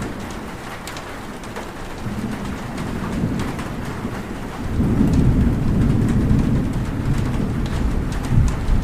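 Steady rain falling, with a low rumble of thunder that swells about halfway through and keeps rolling.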